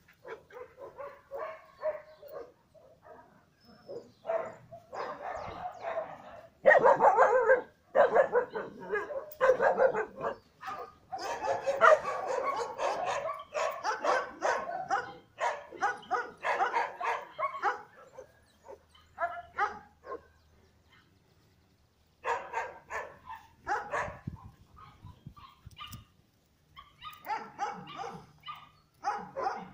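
Dogs barking and yipping in quick runs of short calls. The calls are loudest through the first half, pause for a few seconds about two-thirds of the way through, then start again.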